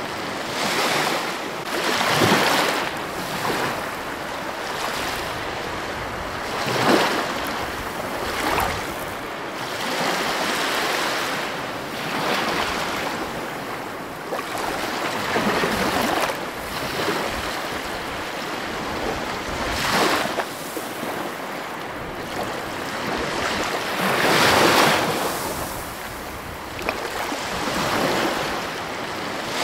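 Ocean surf breaking and washing in: a steady rush of water that swells with each wave every four or five seconds, the biggest surge a few seconds before the end.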